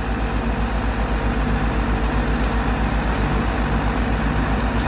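Heavy diesel engine idling steadily, with an even low throb.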